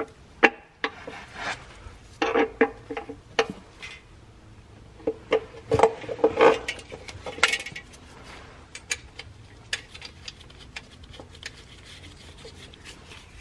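Clicks, clinks and light scraping of a clutch slave cylinder and its hydraulic line being handled and fitted into a transmission bellhousing by gloved hands. The metal parts knock together in two busy bursts, then lighter ticking follows.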